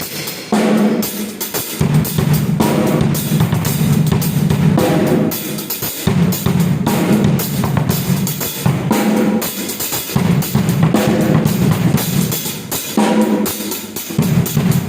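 Yamaha drum kit with Zildjian cymbals played in a sound check: bass drum, snare and cymbals in busy, continuous patterns, with short breaks between phrases about two and six seconds in.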